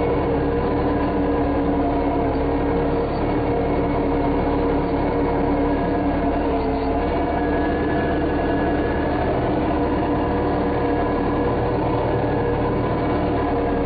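The engine of an earth-moving machine grading a dirt road runs steadily at a constant speed, with a slight dip in pitch about six to seven seconds in.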